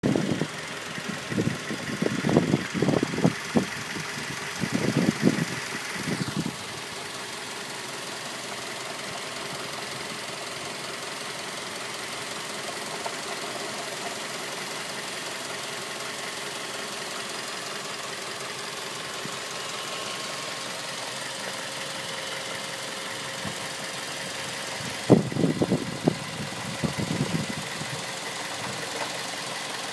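2006 Mazda3 engine running at idle with a knocking that the owner calls engine knocking. Louder irregular low rumbling comes through in the first six seconds and again about 25 seconds in.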